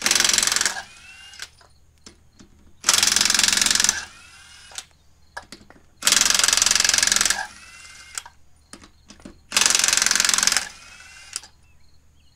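Ridgid 1/2-inch cordless impact wrench hammering wheel lug nuts loose, in four bursts of about a second each, roughly three seconds apart, each trailing off in a short whine as the tool spins down.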